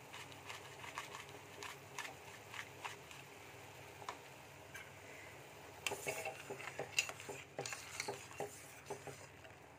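Sugar syrup simmering in a steel saucepan with faint scattered pops. From about six seconds in, a metal spoon clinks and scrapes against the pan as the syrup is stirred.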